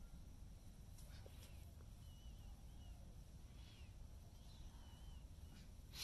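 Near silence with a low steady rumble and a few faint, short bird chirps in the middle, ending in a brief burst of noise.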